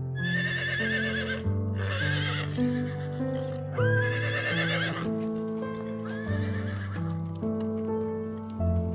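Horse whinnying, several wavering high calls of about a second each, over calm background music with steady held notes.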